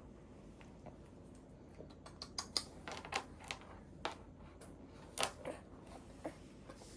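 A scattered run of small, sharp clicks and taps during a baby's spoon-feeding, from spoon, bowl and mouth. They bunch up from about two seconds in and stop shortly before the end.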